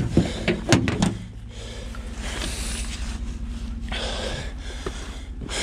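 A few knocks in the first second as heavy beaver carcasses are shifted on a pickup tailgate, then a man's heavy breathing, twice, from the exertion of lifting them, over a low steady hum.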